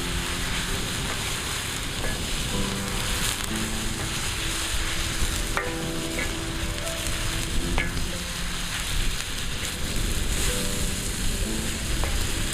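Meat and vegetables sizzling as they fry on a saj, a metal griddle, with a couple of sharp clicks. Background music plays underneath.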